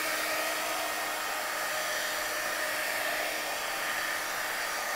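Handheld Marvy embossing heat gun running: a steady blowing of its small fan with a faint motor whine, directed over plastic wrap to shrink and seal it onto a game box. It cuts off at the very end.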